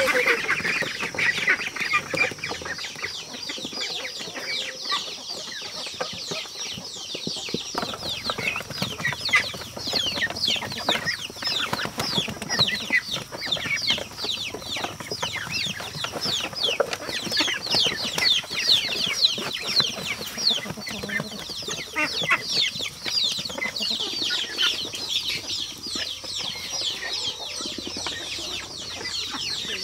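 A flock of young ducklings peeping without pause, many short high peeps falling in pitch and overlapping, as they crowd around feed.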